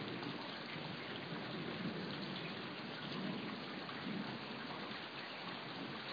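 Steady rain falling during a thunderstorm, with a low rumble of thunder that swells and fades a few times.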